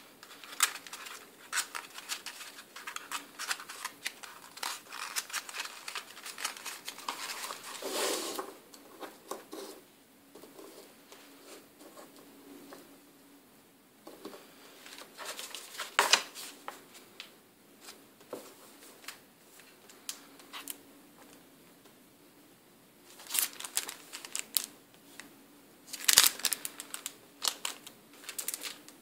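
Paper and foil wrappers crinkling and rustling as they are handled, with small clicks and taps, coming in irregular spurts with short quiet gaps.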